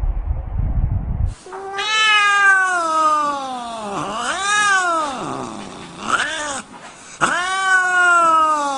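A cat meowing loudly in long, drawn-out yowls: one long falling call, two short rising-and-falling ones, then another long call. A low rumbling noise comes first and cuts off suddenly just over a second in.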